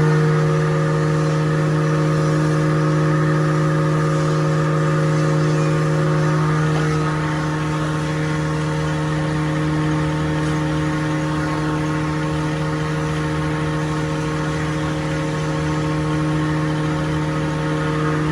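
Pine wood grinding (sawdust powder) machine running steadily, a constant mechanical hum with several steady higher tones over it.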